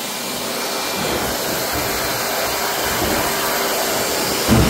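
Pet grooming dryer blowing air steadily through its hose, a continuous loud rushing, with a low bump near the end.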